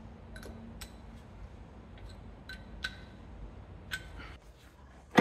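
Metal tools and parts clinking lightly during brake work, about six separate sharp ticks with a brief ring. A faint steady hum runs under the first two seconds.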